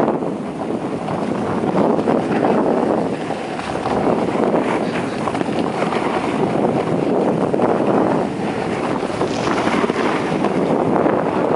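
Wind buffeting the microphone during a fast downhill ski run, a loud rushing that swells and dips, mixed with the hiss of skis sliding over groomed snow.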